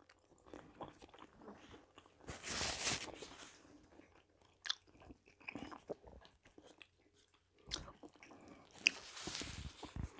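Close-miked chewing of a soft zucchini fritter: wet mouth smacks and small clicks, with two longer hissy stretches about two and nine seconds in.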